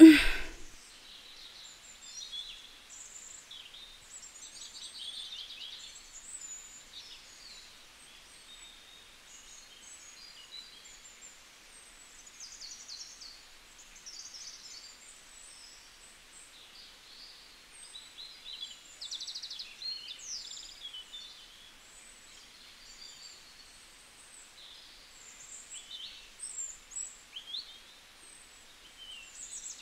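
Many small birds chirping and trilling in short, scattered calls over a faint steady hiss. A single sharp click sounds at the very start.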